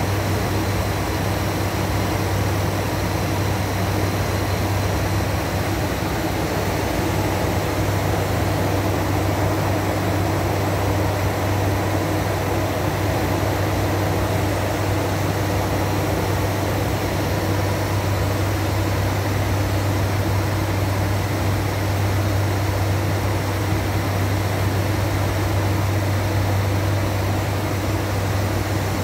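ATR 72-500 turboprop in flight, heard from inside the cockpit: a steady low drone from the propellers and engines over a constant hiss of airflow and cabin air.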